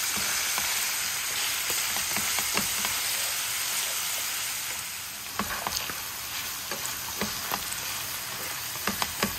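Cubed beef sizzling in hot oil in a frying pan, browning now that its juices have cooked off. A plastic slotted spatula stirs it, with short scrapes and taps against the pan from about halfway.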